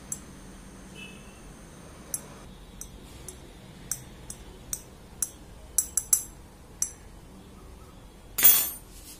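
Metal spatula tapping and scraping on a ceramic saucer while pushing a few small seeds about: a string of light, irregular clinks, some with a short high ring. Near the end comes a brief, louder scrape.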